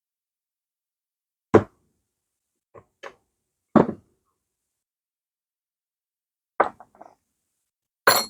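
Irregular sharp knocks and clacks of hard parts or tools being handled and set down during engine teardown, about seven in all. The loudest, near the end, has a brief metallic ring.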